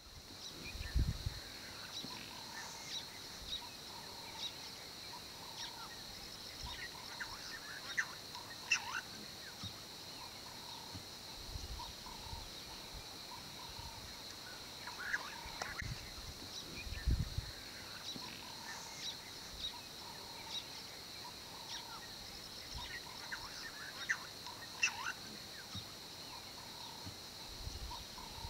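Dry-savanna ambience: a steady high drone with scattered bird calls and chirps, and a few brief low thumps.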